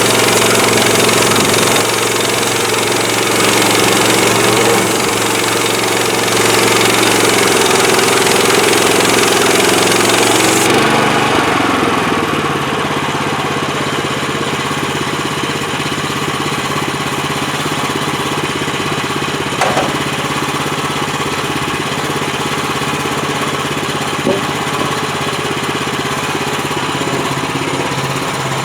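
The petrol engine of an HM130MAX portable bandsaw mill runs hard, with loud high hiss over it. About eleven seconds in, the hiss cuts off sharply and the engine settles to a steadier, lower-pitched run.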